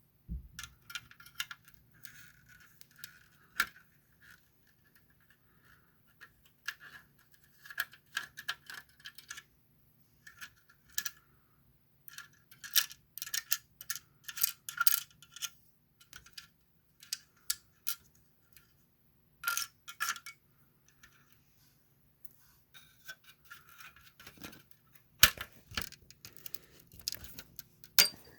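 Small metal parts clinking and rattling while a metal toy is handled and taken apart, in irregular clusters of light jingles and sharp clicks, with louder clacks near the end.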